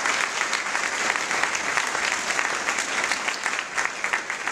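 Audience applauding: many hands clapping together, steadily.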